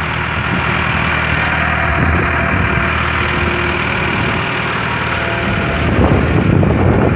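Diesel engine of a Caterpillar 416B backhoe loader running at a steady idle, getting somewhat louder about six seconds in.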